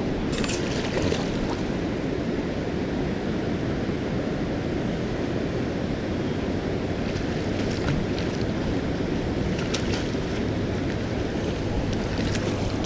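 Steady rush of river water below a dam, with wind buffeting the microphone and a few faint clicks.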